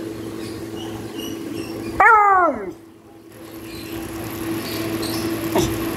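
A beagle gives one loud, high bark that slides down in pitch, about two seconds in. A steady low hum runs underneath.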